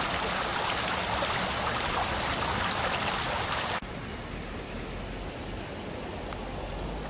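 A small creek rushing and splashing over rocks at a low waterfall, a steady noise of running water. A little under four seconds in it drops suddenly to a quieter, softer rush.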